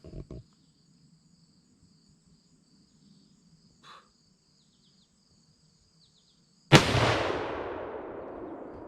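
A single rifle shot from a new Browning .308, fired from a lead sled, about two-thirds of the way in: a sudden loud crack followed by a long decaying echo. Crickets chirp steadily and faintly beforehand.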